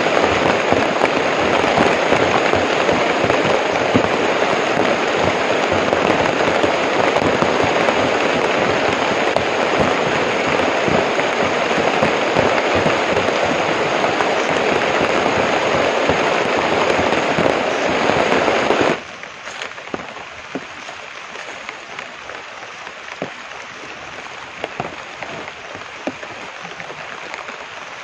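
Heavy rain pouring on broad banana leaves and plantation foliage, a dense, steady hiss. About two-thirds of the way through it drops abruptly to a much quieter rain with scattered single drops.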